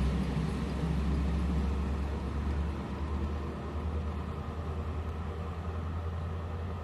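VR Class Dm7 diesel railbus running away from the listener: a steady low engine drone that slowly fades as the train draws off.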